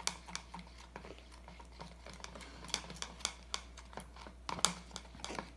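A utensil stirring glue and shaving foam for slime in a container, clicking and tapping irregularly against its sides, about two or three clicks a second.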